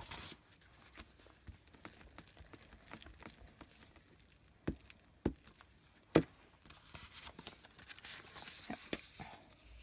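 Paper envelopes rustling as they are handled, laid down and glued with a glue stick rubbed across the paper. Three sharp taps come near the middle, the loudest about six seconds in.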